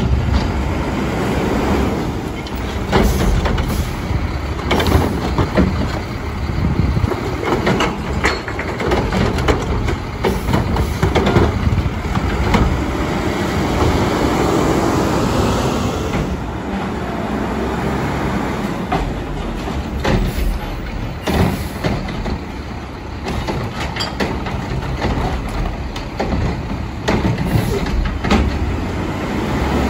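Mack LEU garbage truck with a McNeilus Contender body and Curotto Can arm at work: its diesel engine runs steadily under repeated clanks and knocks, with a louder stretch about halfway through.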